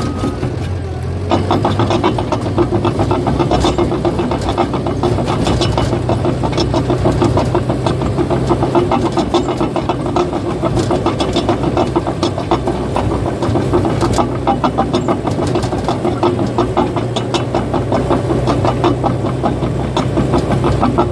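Caterpillar bulldozer's diesel engine running steadily, with a dense, rapid clatter of its steel tracks setting in about a second in as the machine moves.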